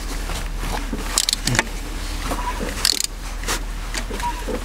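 Short bursts of metallic clicking from a wrench turning the crankshaft of a BMW M57 diesel over by hand, with the cylinder head open, to check the newly set chain timing. The bursts come every second or so, over a steady low hum.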